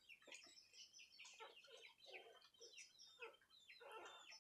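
Faint, rapid high-pitched chirping and squeaking calls from small animals, several a second, each one falling in pitch.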